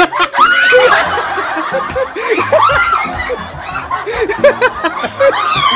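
Several people laughing hard together, short repeated laughs broken by a few high-pitched squeals.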